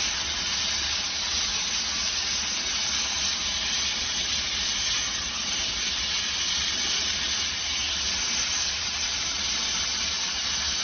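Vertical biomass-pellet steam generator running, with a steady hiss of steam and a constant low rumble underneath.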